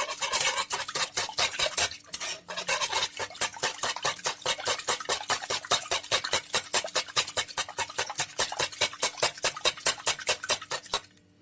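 Rapid beating of eggs, sugar and lemon juice in a saucepan for a lemon cream: a utensil clicks against the pan at about six or seven strokes a second. There is a short pause about two seconds in, and the beating stops just before the end.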